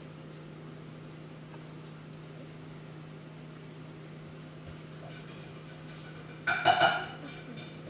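Steady low hum in a small room, with a short, loud noise lasting about half a second about six and a half seconds in.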